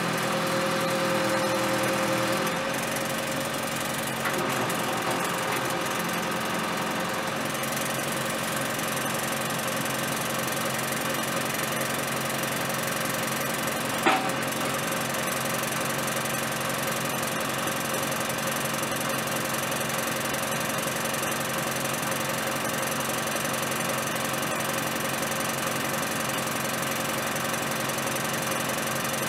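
Diesel engine idling steadily, with a single sharp metal clank about halfway through.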